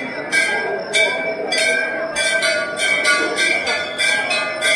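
Temple bells struck over and over, about three strikes a second, each strike ringing on over a crowd's murmur.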